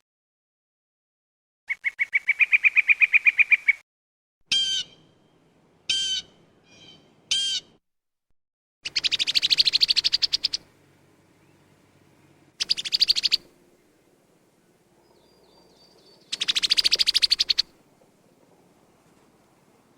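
Songbirds calling in short separate bursts with silent gaps: a rapid trill, three short swooping whistled calls about a second and a half apart, then three more fast high trills.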